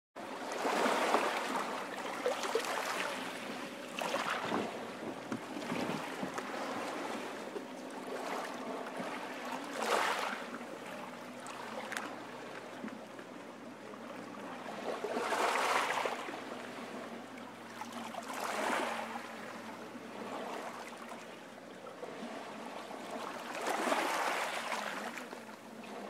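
Ocean surf: waves breaking and washing up a beach, a steady hiss of rushing water that swells with each breaker every few seconds.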